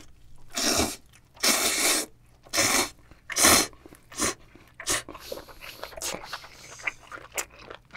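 Cold bibim-myeon noodles slurped into the mouth in four loud pulls over the first four seconds, then chewed with small wet clicks.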